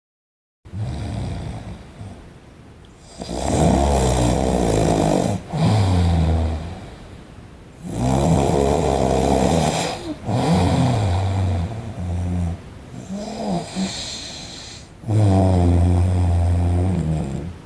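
A man snoring heavily in his sleep: a run of loud, deep snores, each lasting a second or two, with short pauses for breath between them.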